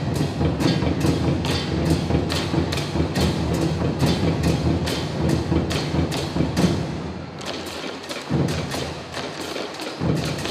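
Drum ensemble playing: a sharp wooden clacking beat of about three strikes a second over dense low drumming. About seven and a half seconds in the low drumming thins out, leaving the clacks with a few single heavy drum hits.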